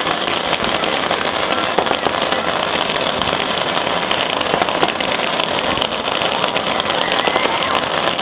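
Bonfire burning aboard a boat: a steady, dense crackling and popping.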